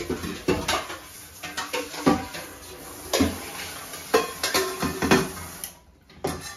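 Kitchenware being handled: irregular knocks and clinks of pots, bowls and metal utensils, stopping near the end.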